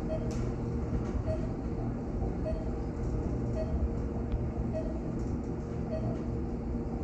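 Steady low rumble of a ThyssenKrupp elevator car travelling up its shaft, with a faint short tone repeating about once a second.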